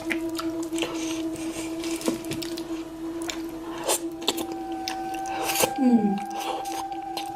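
Close-miked eating sounds: chewing, squelching and scattered sharp clicks over a steady hum, with a short falling moan-like sound about six seconds in.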